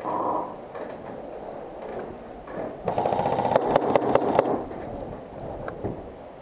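Airsoft electric gun firing one fast full-auto burst of about a second and a half, about three seconds in.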